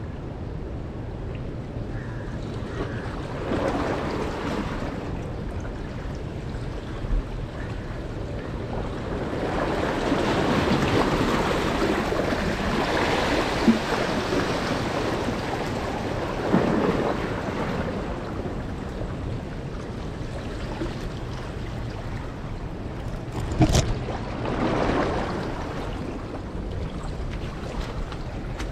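Sea waves washing and breaking against the rocks of a breakwater, swelling and ebbing in several surges. Once, late on, there is a single sharp knock.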